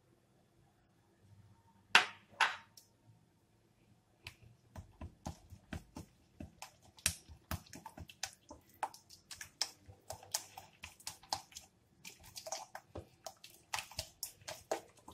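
A utensil beating egg yolk into a thick sauce in a glass bowl, clicking against the glass about three times a second, with a short pause near the end. Two sharp knocks about two seconds in, before the beating starts.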